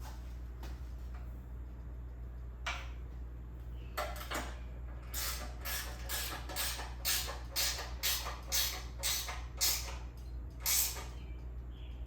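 Fasteners on a miter saw stand's brackets being tightened by hand: a few separate strokes, then a regular run of short strokes about two a second, over a steady low hum.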